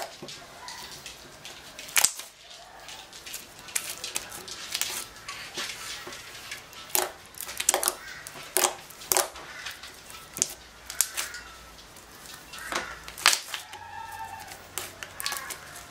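Soft slime being poked, squeezed and folded by fingers, making irregular sticky pops and clicks as air pockets burst, loudest about two seconds in and again near the end.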